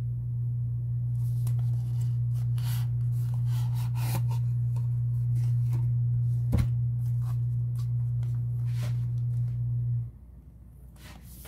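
A steady low hum, cutting off about ten seconds in, under light scraping, rubbing and clicks of a cardboard smartphone box being handled, with one sharp knock a little past halfway.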